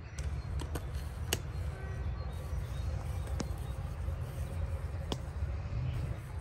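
Campfire burning, with a few sharp crackling pops scattered over a steady low rumble.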